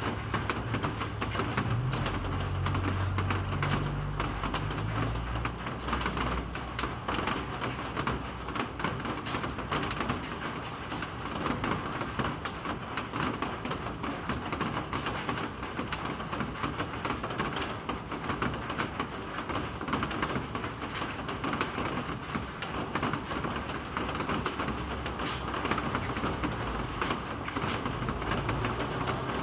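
Steady rain falling, a dense patter of drops hitting surfaces. A low rumble sits under it for the first few seconds.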